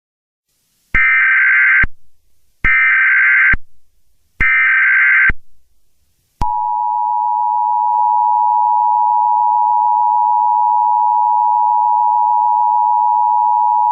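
Emergency Alert System broadcast: three short bursts of shrill digital SAME header data, then the steady two-tone EAS attention signal starts about six seconds in and holds.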